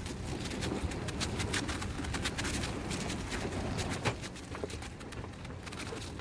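Thin ice floe scraping and crackling against a sailboat's hull: a dense run of sharp cracks and ticks over a low grinding rumble.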